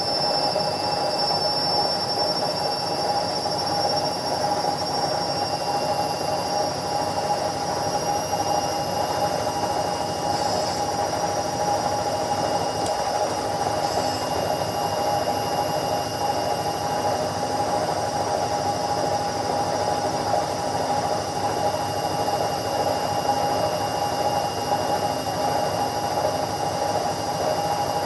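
Indesit washing machine spinning at top speed: a steady whirr of the drum and motor with a high whine above it, running evenly without let-up.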